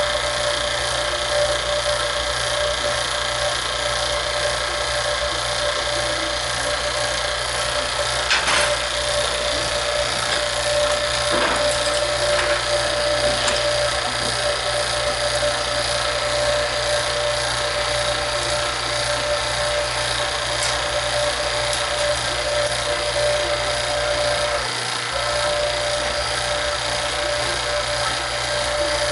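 A small motor-driven machine running steadily, with a constant whine over a hiss; the low hum drops out for a moment near the end.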